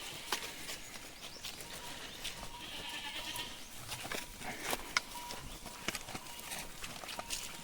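Goats bleating while the herd moves and browses, with scattered sharp clicks throughout.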